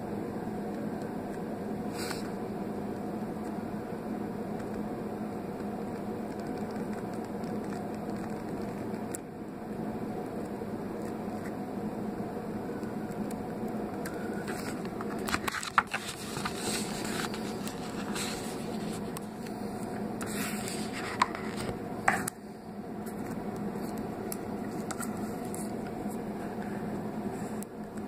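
A steady low hum runs throughout. From about halfway in, a GyroCut swivel-blade craft knife scratches as it cuts small circles in paper, with a few sharp clicks.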